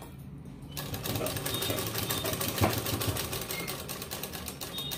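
Domestic sewing machine stitching a seam at a steady fast pace, with a rapid, even clatter of the needle mechanism starting a little under a second in.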